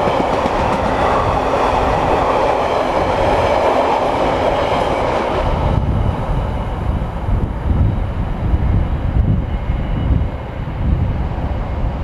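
A container freight train passing at speed, its wagons rattling along the rails until the last wagon clears about six seconds in and the noise cuts off suddenly. After that, wind buffets the microphone with low gusts.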